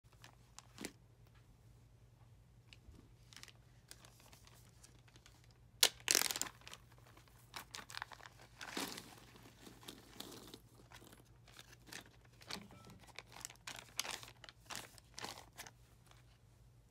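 A Ziploc plastic bag crinkling and rustling as it is handled, with a sharp rip about six seconds in as the zipper seal is pulled open. Cardboard mini jigsaw puzzle pieces then spill out with a longer rustle and are moved about with light scattered clicks.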